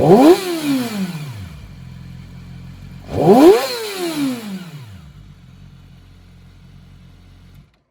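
2009 Yamaha YZF-R6R's inline-four engine blipped twice through a Yoshimura slip-on exhaust. Each rev climbs sharply and falls back over about a second and a half, then the engine settles to a steady idle.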